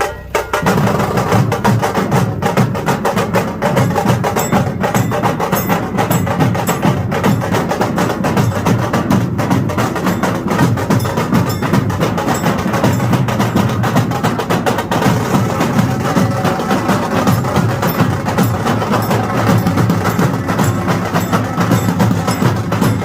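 Loud music driven by fast, dense drumming, its low drum beat coming in about a second in.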